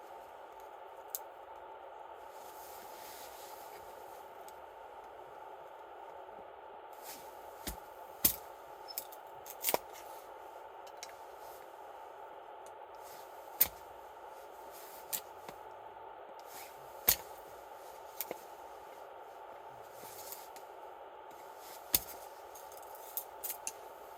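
Wood campfire crackling: irregular sharp pops, the loudest about every few seconds, over a steady hiss.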